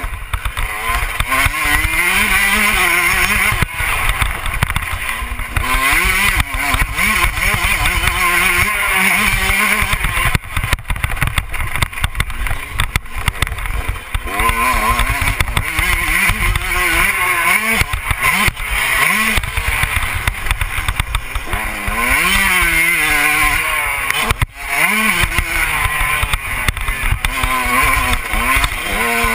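Motocross bike engine being ridden hard, its pitch climbing again and again as it revs up through the gears and easing off between. Heavy wind buffeting and rumble on the microphone throughout, with a brief lull about twenty-four seconds in.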